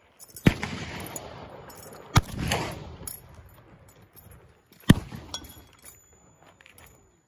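Three gunshots from black-powder firearms, each a sharp crack followed by a rolling echo, the first about half a second in and the others roughly two and a half seconds apart.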